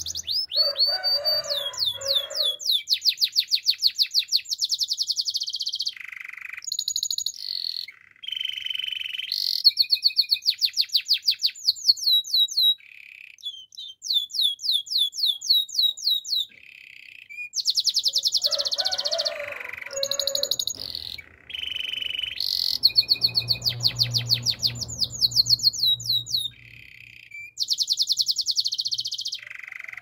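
Domestic canary singing: phrases of fast trills, each made of rapidly repeated notes, broken by short pauses.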